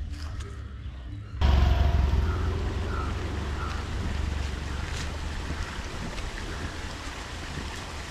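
Wind buffeting the camera microphone: a low rumble over a steady rushing hiss, jumping louder about a second and a half in.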